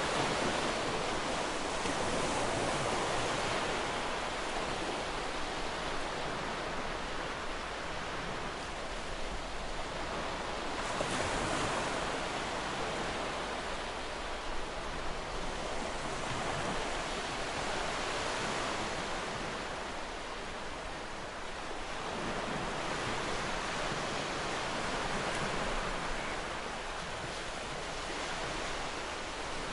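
Ocean surf: waves breaking and washing in as a continuous rush that swells and eases every several seconds.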